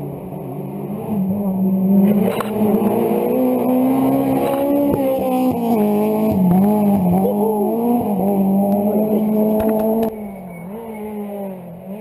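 Rally car engine heard from on board, pulling hard with its pitch rising and dipping as the driver works through the gears and corners. About ten seconds in the engine note drops suddenly as the driver comes off the throttle.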